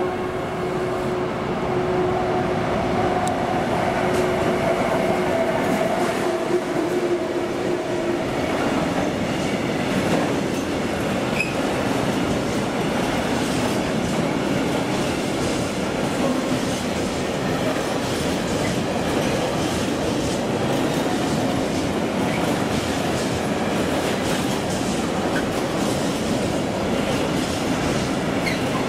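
Electric freight locomotive passing close by with a steady hum for about the first eight seconds, followed by a long train of tank wagons rolling past, their wheels rumbling and clattering on the rails.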